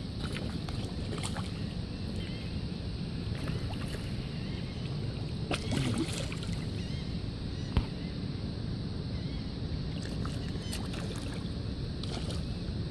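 Steady low rumble of wind and water, with splashes about six seconds in as drum and redfish strike food at the surface. A single sharp knock comes just before the eight-second mark.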